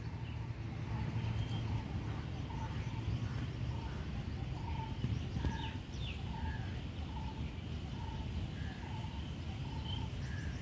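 A bird calling a short note over and over, about twice a second, with a few higher chirps between, over a steady low background rumble.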